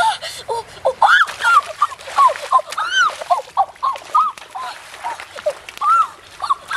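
A quick run of short animal calls, each rising then falling in pitch, several a second, over water splashing in a shallow stream.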